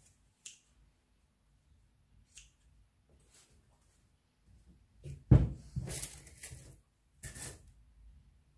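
A few faint snips of scissors cutting a sponge, then a sharp thump on the table about five seconds in, followed by a light scratchy clatter of thin wooden skewers being handled, with a second short clatter near the end.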